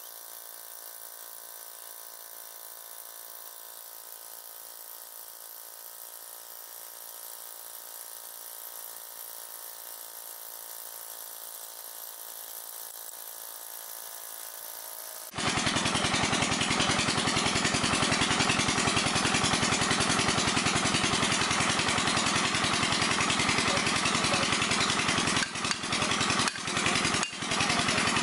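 Diesel engine running steadily, driving the water pump for jet-drilling a well. It is faint and thin at first, then jumps suddenly much louder about halfway through, with a few brief dips near the end.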